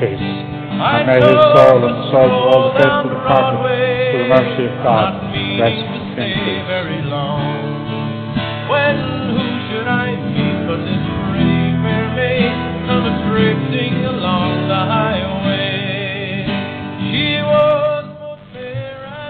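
Music track: a country-style song led by plucked guitar, fading down near the end.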